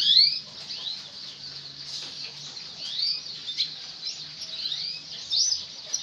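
Caged canaries chirping: short, high chirps that sweep up and down in pitch, repeated on and off, the loudest right at the start.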